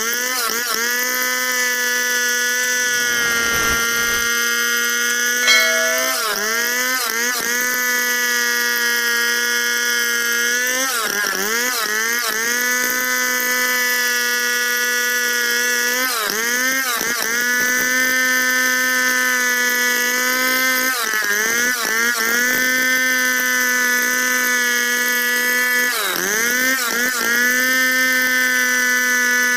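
Two-stroke Stihl chainsaw running at high revs while ripping lengthwise through a log. Its engine note dips sharply and climbs back about every five seconds.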